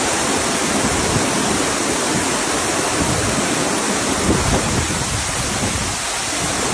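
Floodwater rushing in a steady, dense noise.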